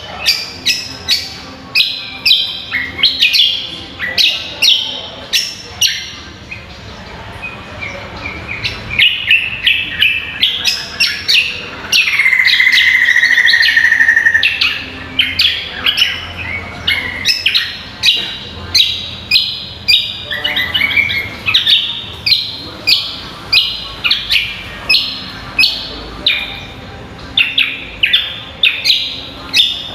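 Greater green leafbird (cucak kombo) singing: a quick series of sharp chirping notes, about two a second, broken partway through by one loud, long note of about two seconds that falls slightly in pitch.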